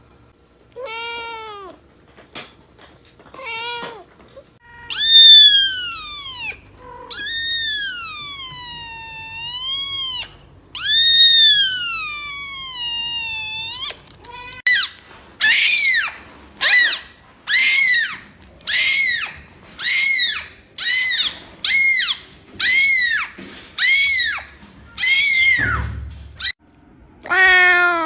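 Cats and kittens meowing: first several long, drawn-out meows that rise and fall in pitch, then a kitten giving a quick series of short, high-pitched mews, about one a second, and a last meow near the end.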